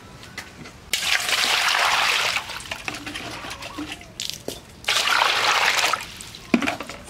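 Water poured into a stainless steel bowl, twice, each pour splashing for a second or so, with a short knock near the end.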